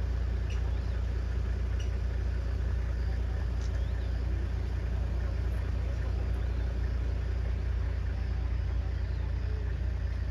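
Safari vehicle's engine idling with a steady low rumble, with a few faint high ticks.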